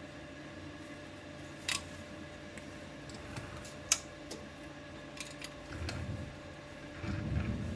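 Hands working the lid and wing-nut clamps of an All American aluminium pressure canner: two sharp metallic clicks a couple of seconds apart, a few lighter ticks, then dull low handling noise near the end.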